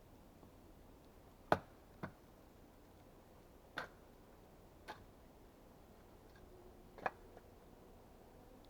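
A few sharp, isolated clicks or knocks at uneven intervals, five in all, the loudest about a second and a half in.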